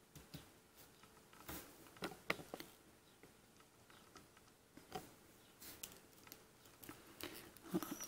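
Faint, scattered clicks and light rubbing of a plastic action figure handled in the fingers as its legs are worked at the hip joints.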